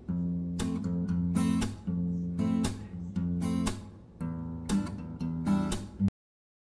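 Background music of acoustic guitar strumming chords, cutting off suddenly about six seconds in.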